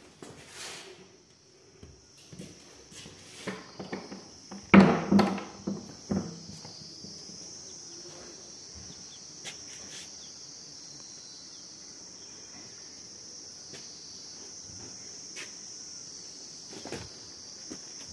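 Steady high-pitched insect trilling, with scattered footsteps scuffing on a concrete path. A brief loud vocal sound about five seconds in.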